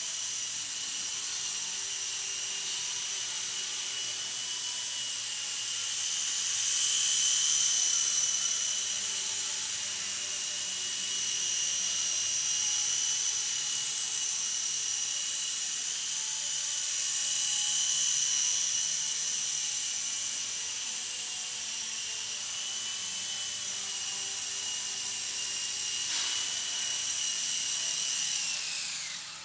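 Traxxas DR-1 coaxial RC helicopter in flight: a steady high-pitched whine of its electric motors with the whir of its two rotors, swelling louder twice. Near the end the whine drops in pitch and fades as the motors spool down.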